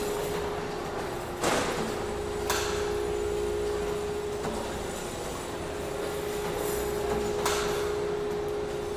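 Machinery inside a spring manufacturing plant: a steady machine hum over a low rumble, with sharp hits about a second and a half in (the loudest), again a second later, and near the end.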